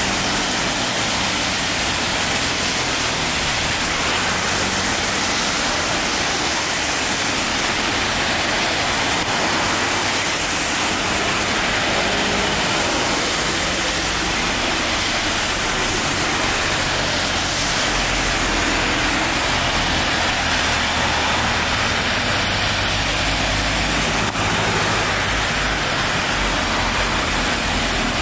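Steady city road traffic on a wet road: tyres hissing on wet tarmac, with car and bus engines running underneath.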